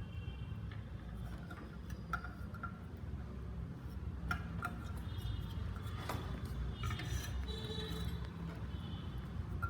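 Scattered small clicks and taps of tools and wires being handled while soldering headphone wires onto a small circuit board, over a low steady hum.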